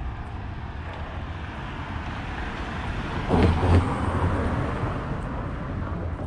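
A car driving past close by on the street. Its tyre and engine noise swells to a peak a little past halfway, drops in pitch as it goes by, and fades away over a steady low traffic hum.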